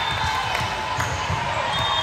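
Volleyball being hit and bouncing on a gym floor, a few sharp smacks, over the chatter of a crowd in the gym.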